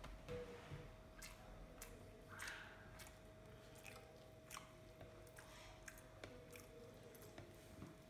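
Faint wet squishing and small clicks of fingers mixing and gathering rice with daal on a plate, eaten by hand, with soft chewing, over a faint steady hum.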